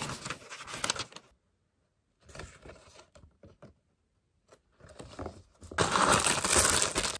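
Paper sheets and a taped cardboard shipping box being handled, rustling and crinkling. The sound drops to dead silence twice and is loudest near the end.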